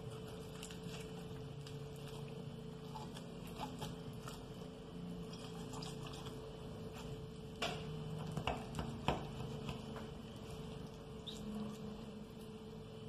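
Knife working through a raw whole chicken being deboned on a glass cutting board: soft wet clicks and small taps throughout, with a few sharper knocks about eight to nine seconds in, over a faint steady hum.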